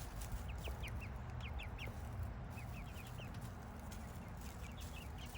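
Backyard hens clucking softly, with many short, high, falling chirps scattered throughout, over a low steady rumble.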